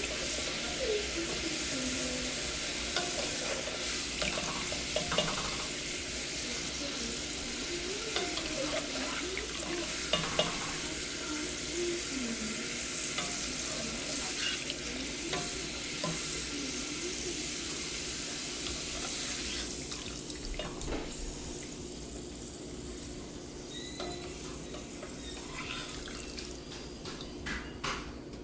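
Potato fries deep-frying in hot coconut oil in a pot, a steady sizzle and bubble with occasional clicks of a utensil moving them around. The sizzle thins and quiets about two-thirds of the way in.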